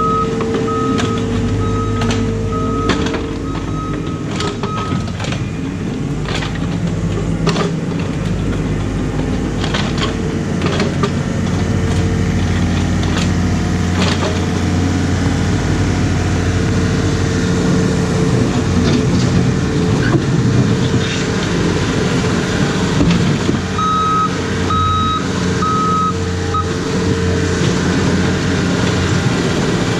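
Excavator diesel engine running under load, with many sharp clanks and knocks as the bucket works river rocks. A reversing alarm beeps about twice a second for the first few seconds, stops, and beeps again for a few seconds near the end.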